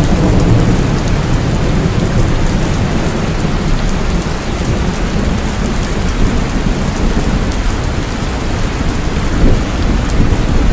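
Heavy rain falling steadily, with a continuous low rumble of distant thunder underneath.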